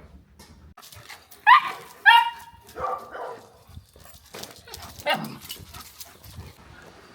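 A dog barking several times: two loud barks about a second and a half and two seconds in, a few lower ones around three seconds, and one more about five seconds in.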